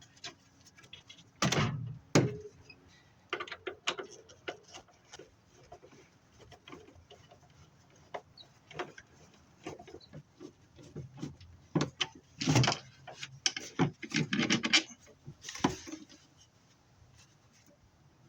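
Irregular clanks, knocks and rattles of sheet-metal furnace parts being handled and pulled out during disassembly, with a cluster of louder knocks about 12 to 16 seconds in.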